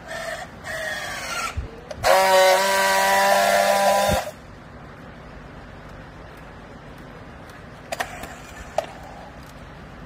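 Battery-powered handheld strapping tool working on a plastic strap around a clothes bale: a short, uneven motor whine, then a loud steady buzz for about two seconds that cuts off abruptly, the tensioning and friction-welding of the strap. Two sharp clicks follow near the end.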